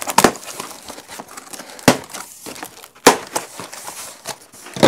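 A cardboard box being opened by hand: four sharp snaps and knocks spread through it, with crackling and rustling of cardboard and packing between them.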